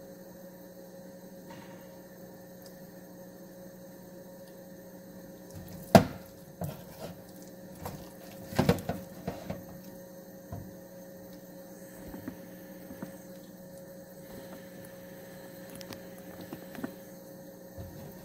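A small test drop of fritter batter frying in sunflower oil in a pan, giving scattered crackles and sharp pops from about six seconds in, the loudest pop first: the oil is hot enough to fry. A steady low hum sits underneath.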